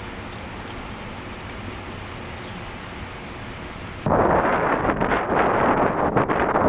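Steady rain and wind outdoors. About four seconds in, a much louder, crackling rush of rain and wind hitting the microphone starts abruptly.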